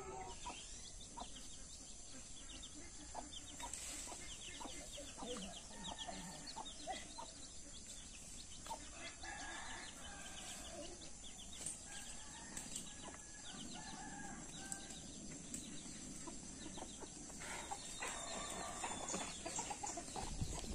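Chickens clucking on and off, with small birds chirping among them.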